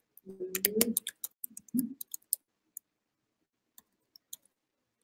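Computer keyboard keys being typed in a quick run of clicks for about two seconds as a search term is entered, then a few scattered single keystrokes.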